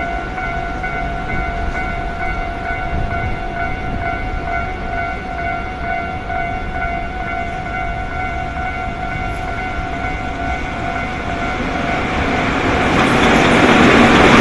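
Japanese railway level-crossing warning bell ringing steadily. About three-quarters of the way through it is swamped by the swelling noise of an approaching JR Freight EF66 electric locomotive and its freight train, which grows louder to the end.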